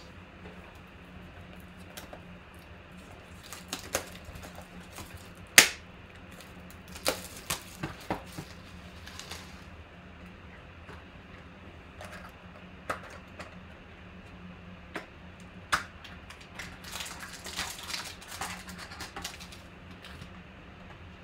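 Scattered clicks, taps and rustling of a cardboard trading-card box and its pack being handled on a table, over a steady low hum. The loudest is a sharp click about five and a half seconds in, and there is a busier run of tapping and rustling near the end.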